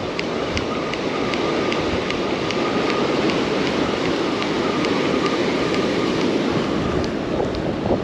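Ocean surf breaking with wind on the microphone, under a regular run of light ticks, about three a second, from a spinning reel being cranked as a hooked whiting is reeled in.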